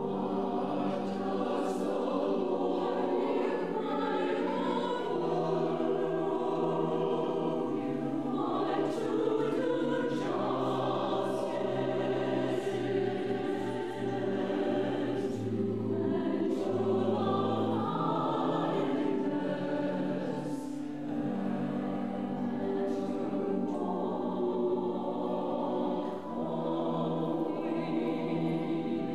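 Mixed church choir of men and women singing a sacred choral anthem together, their voices sustained and shifting in pitch throughout.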